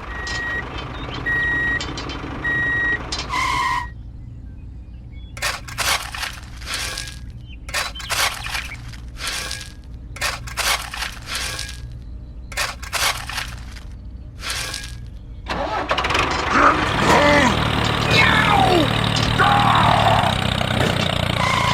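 Small engine running steadily throughout. It opens with four short, evenly spaced electronic beeps, then a run of sharp knocks, and from about two-thirds of the way in the sound grows louder and busier with clattering.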